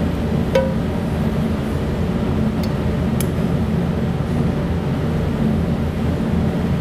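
Steady low background hum, with a few light clinks, one of them about half a second in, as metal tongs touch a ceramic serving platter.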